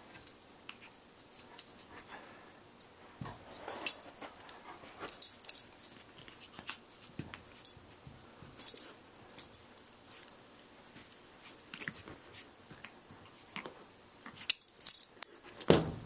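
Shih Tzu puppy scuffling with its reflection: scattered light taps, scratches and scuffles of paws against the mirror and carpet, with a faint puppy whimper or two. The busiest flurry of taps comes near the end.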